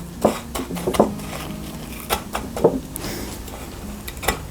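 Crushed Cap'n Crunch cereal crunching and a handful of soft knocks against the dish as a thick slice of egg-soaked Texas toast is pressed and turned in it, over a low steady hum.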